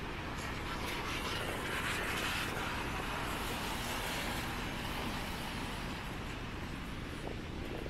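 City rain ambience: an even hiss of traffic tyres on wet roads mixed with rain on a clear umbrella, growing louder for a moment about two seconds in as a vehicle passes.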